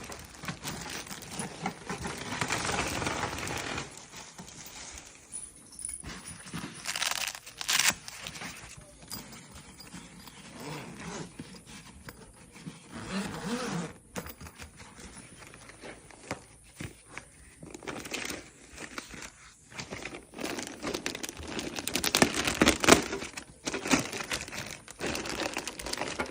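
Packaging crinkling and rustling as it is handled and pulled open, in irregular bursts, loudest near the end.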